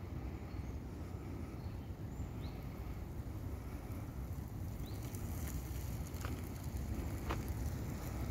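Steady low rumble of wind buffeting the microphone during an outdoor walk, with a few sharp clicks and a couple of faint short high chirps.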